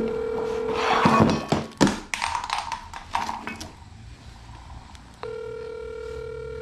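Telephone ringback tone of an outgoing call, heard through the phone's speaker: a steady ring that stops about a second in and sounds again for about two seconds from a little after five seconds in, with clicks and rustling of handling between the rings. The phone is still ringing, waiting to be answered.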